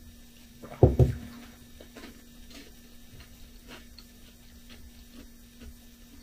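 A sip and gulp from a mug of hot drink about a second in, followed by faint scattered mouth clicks, over a steady low hum.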